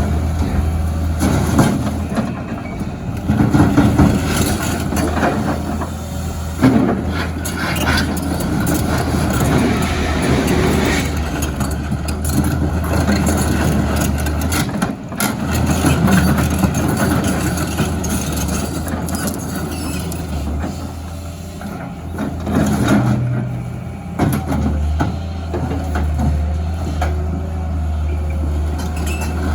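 Heavy diesel engine running steadily, with a few sharp knocks and clanks.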